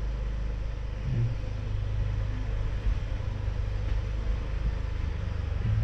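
Street traffic: a steady low rumble of passing vehicle engines.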